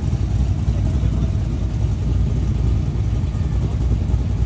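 Holden Commodore SS's V8 engine running with a steady low note and no sharp revving.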